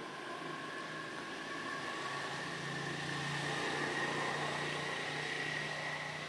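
A steady low engine hum that grows a little stronger about two seconds in, with a thin, steady high-pitched tone running over it.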